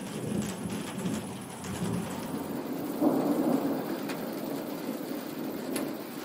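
Thunder rumbling over steady rain, with a louder roll of thunder about three seconds in that slowly dies away.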